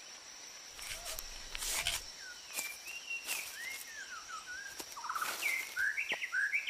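Rainforest sounds: leaf litter rustling in a few short bursts, and several birds giving short whistled and chirping calls that slide up and down in pitch, growing busier near the end. A faint steady high insect tone runs underneath.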